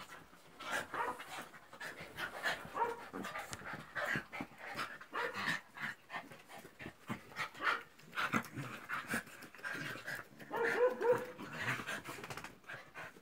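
Dogs panting and scuffling as they play-wrestle on a bed.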